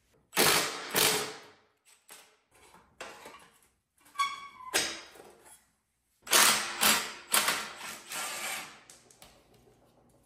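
Steel brackets and linkage of a Wheel Horse garden tractor being worked loose and handled during teardown. Two loud metal clanks come near the start, then lighter rattles and a short squeak about four seconds in, then a run of loud clanks from about six seconds.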